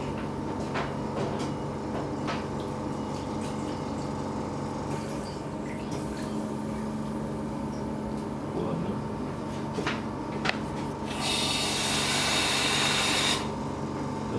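Water rushing for about two seconds, starting about eleven seconds in, as fluorescein stain is rinsed from a cat's eye. Before it, a steady low hum with a few light clicks and taps.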